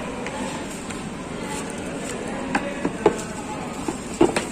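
A few light clicks and knocks from a plastic computer keyboard being handled, the loudest pair near the end, over a steady background noise.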